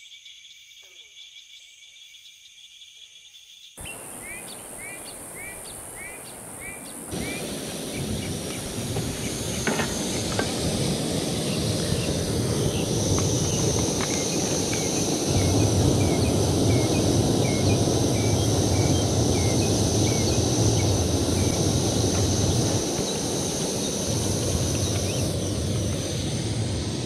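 Crickets and frogs calling at night for the first few seconds. Then a liquid-fuel backpacking stove burns under a pot of cowboy coffee with a steady rushing roar, while birds chirp in short repeated calls. The roar eases somewhat near the end.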